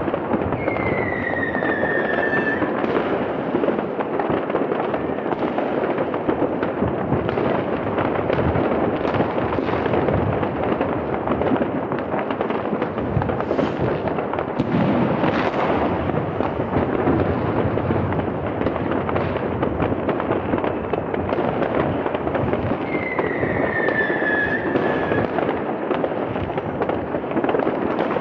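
Dense, unbroken crackle and banging of many firecrackers and fireworks rockets going off all around. A falling whistle cuts through about a second in and again near the end.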